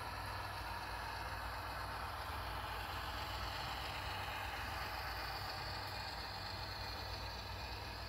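Model diesel locomotive's Soundtraxx Tsunami 2 sound decoder playing a steady diesel engine sound through its small onboard speaker as the train rolls past, over a hiss of room noise.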